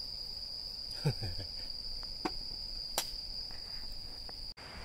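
Night insects trilling: one steady, high-pitched trill with no break. A brief low sound comes about a second in, and a few faint clicks follow.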